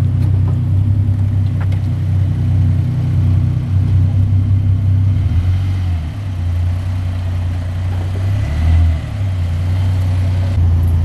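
Ford FG Falcon sedan's engine running with a deep, steady low rumble as the car rolls up at low speed and comes to a stop, swelling briefly a little before the end.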